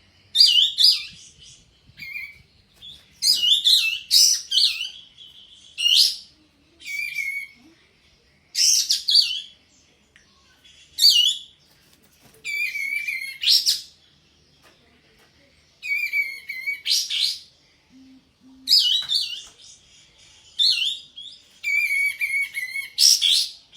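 Kapas tembak songbird in breeding condition singing loudly, delivering short, quick phrases of high rising and falling notes over and over, about one every two seconds.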